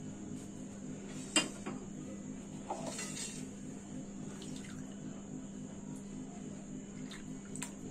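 Quiet kitchen room tone: a steady low hum with a few faint clinks and ticks, the sharpest about a second and a half in.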